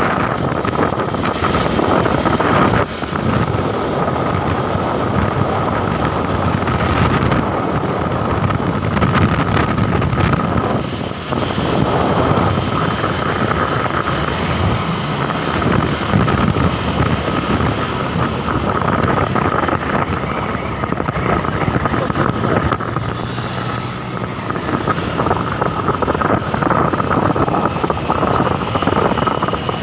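Road vehicle driving at speed: steady engine and road noise with wind on the microphone, and a steady high whine.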